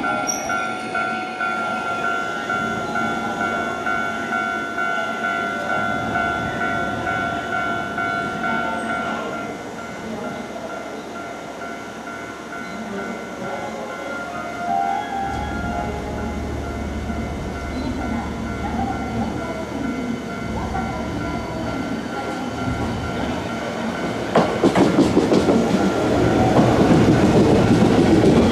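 Hankyu 1300 series electric commuter train pulling slowly into a platform, a steady running hum as it approaches. About 24 seconds in it gets louder as the cars pass close by, with rapid wheel clicks over the rail joints.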